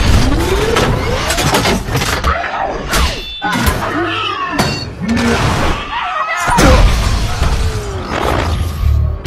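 Action-film battle sound effects: a dense run of crashes, shattering metal and heavy booming impacts, with gliding mechanical whines between them.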